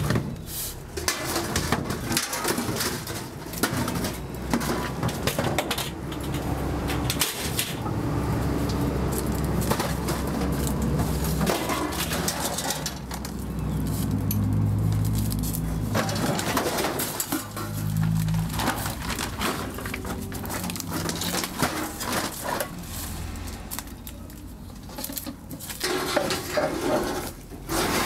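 Scrap metal and empty metal paint cans knocking and clattering as they are handled and loaded into the back of a van, with a bird cooing repeatedly in the background.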